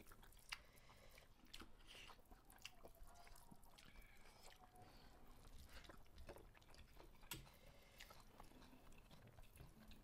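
Very quiet eating sounds of two people eating rice by hand: faint chewing and soft scattered clicks of fingers against steel plates, a slightly sharper click about half a second in and another around seven seconds in.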